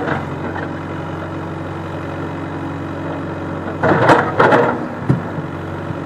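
Backhoe loader's diesel engine running steadily at low revs. About four seconds in there is a brief burst of louder noise, then a single knock about a second later.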